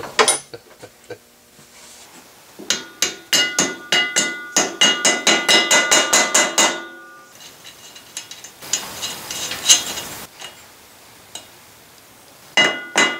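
Socket ratchet clicking in quick runs with light metallic clinks, tightening the bolts of a truck driveshaft's rear U-joint at the pinion yoke. A short hiss comes in about nine seconds in.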